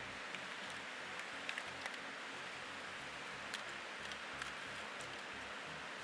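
Steady rush of forced air from a 12-volt blower fan driving into a charcoal-fired melting furnace, with scattered small clicks over it.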